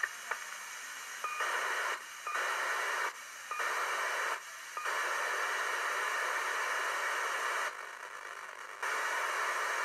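Hiss from a 2-metre-band FM receiver with no station on frequency, as it is tuned across the band. The hiss breaks into short quieter gaps several times, with a longer gap of about a second near the end.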